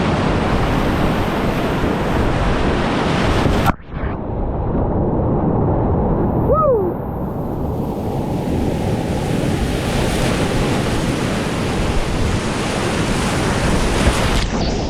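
Whitewater rapids rushing loudly around a kayak, heard from a camera on the paddler's life jacket, with wind on the microphone. About four seconds in the sound cuts out suddenly and comes back dull and muffled for a few seconds before the full rush returns.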